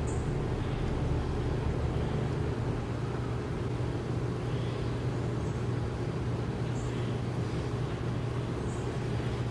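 Steady low hum and rumble of background noise, with a few faint, short, high chirps.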